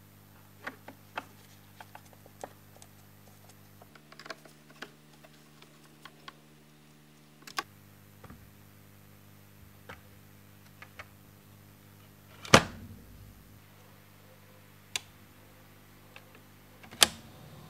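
Scattered small clicks and taps of metal parts and screws being handled during reassembly of a Sony TC-357A reel-to-reel tape recorder, over a steady low hum. Two much louder sharp knocks come in the second half.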